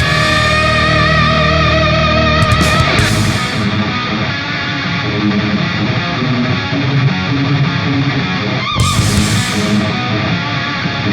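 Background rock music with electric guitar; the low end drops out about three and a half seconds in.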